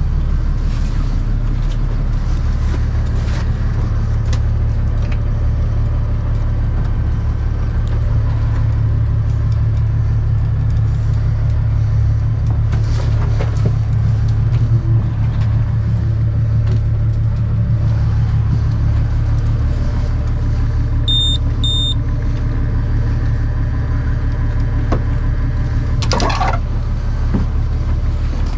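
Small fishing boat's engine running with a steady low rumble. A little over two-thirds in, two short high electronic beeps sound, and near the end there is a brief clatter.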